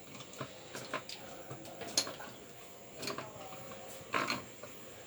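Water sloshing and splashing in a shallow tank as a hand pushes it into waves, in a few short irregular surges with scattered light clicks between them.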